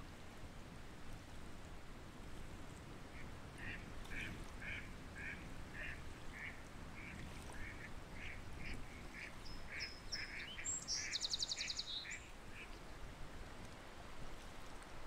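Ducks calling: a run of short, evenly spaced calls, about two a second, lasting most of the way through. A small bird's quick high trill cuts in briefly near the end.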